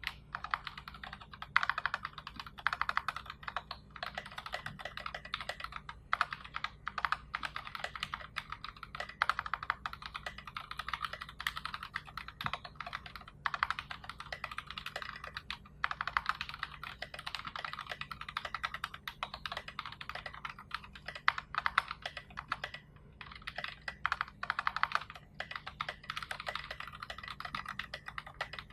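Continuous fast typing on a mechanical keyboard with NovelKeys Box Royal switches, SA F22 keycaps and a 3 mm acrylic plate in a KBDfans 5 degree case. It sounds as a dense run of keystroke clicks and clacks, with short pauses now and then.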